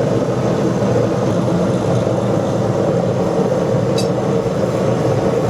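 Blacksmith's forge running with a steady, even rushing noise while a steel bar heats in the fire, with one faint tick about four seconds in.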